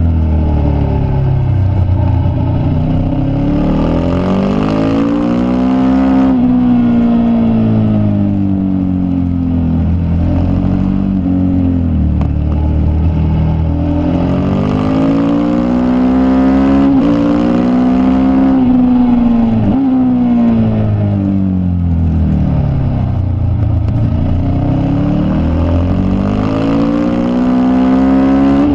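Racing motorcycle engine at full race pace, heard from a camera on the bike's tail. Its pitch climbs hard, drops sharply at each gear change and sweeps down under braking into corners, again and again, over steady wind rush.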